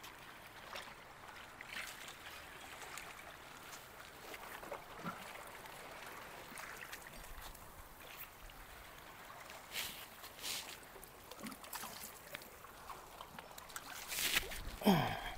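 Faint, steady wash of water lapping against jetty rocks, with a few scattered light clicks, and a short falling voice-like sound near the end.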